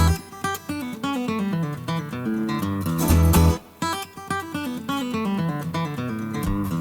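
Background music: acoustic guitar with bass notes.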